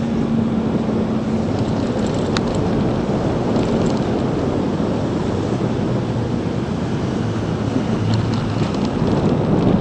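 Steady wind rush over the microphone and road rumble from a Zero DSR electric motorcycle being ridden, with no engine note.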